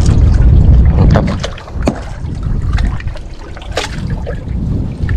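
Wind buffeting the microphone in a heavy low rumble that eases about a second and a half in, over water slapping around a small boat, with a few sharp knocks.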